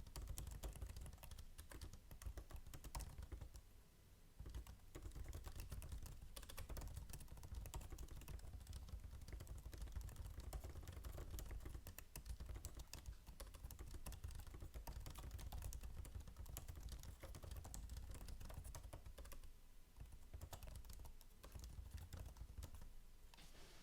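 Continuous fast typing on a 2021 16-inch Apple MacBook Pro's built-in scissor-switch keyboard: quiet, dense key clicks, with brief lulls about four seconds in and again near the end.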